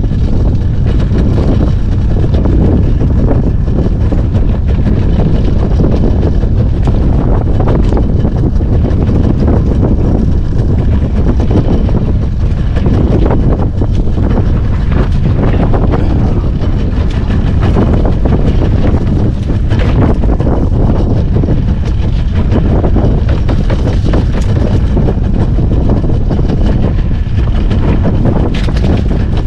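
Loud, steady rumble of wind buffeting the microphone on a moving boat, heaviest in the low end with no let-up.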